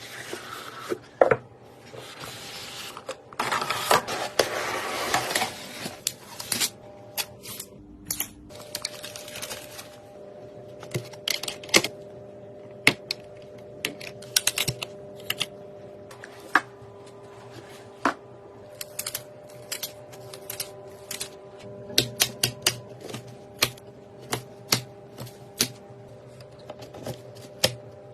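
Irregular sharp clicks and light taps of computer parts being handled and fitted together during a PC build, with a stretch of rustling about four to five seconds in.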